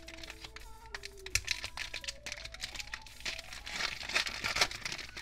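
Foil wrapper of a Pokémon TCG Ancient Origins booster pack crinkling and tearing as hands pull it open: a run of irregular sharp crackles that gets denser in the second half.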